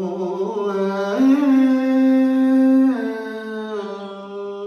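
Vietnamese chanted poetry (ngâm thơ): a voice draws out a single syllable of the verse in long held notes that waver slightly. The pitch steps up about a second in and back down near three seconds.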